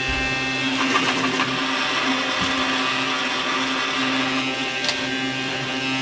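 Toy Henry vacuum cleaner's small battery motor running with a steady whir, with a few light clicks about a second in and again near the end.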